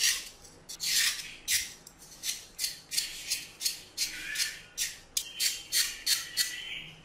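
Kitchen knife blade scraping the thin green skin off a pointed gourd (potol) held in the hand: a series of short scraping strokes, about two to three a second, coming a little faster in the second half.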